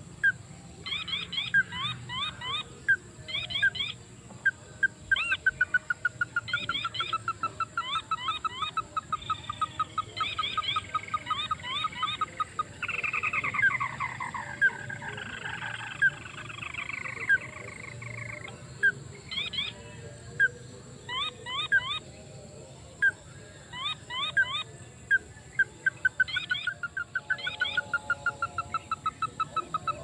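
Ruddy-breasted crake calls: series of sharp repeated notes and fast rattling trills, with a descending trill about 13 seconds in.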